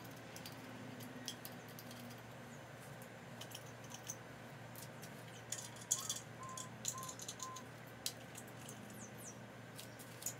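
Light metallic clicks and clinks of small spring washers being slid off the studs of a VW air-cooled engine case and handled, with a quick cluster of clinks about six seconds in.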